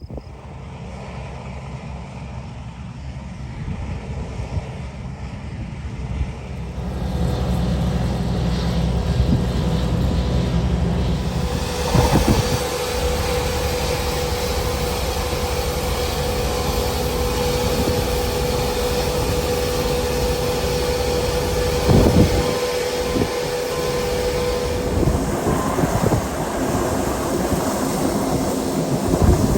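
Large engine running, growing louder about seven seconds in, with a steady whine held for some thirteen seconds from about twelve seconds in and two short knocks along the way.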